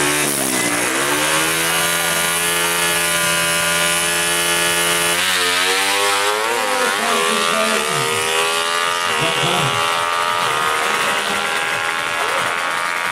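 Drag-racing motorcycle engine held at steady high revs on the start line, then launching about five seconds in, its pitch climbing and dropping repeatedly as it accelerates away down the strip.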